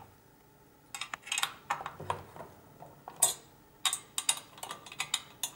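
Irregular metallic clicks and clinks as a screw is set into an aluminium mounting bracket and turned with a 4 mm hex key; they start about a second in, after a brief quiet.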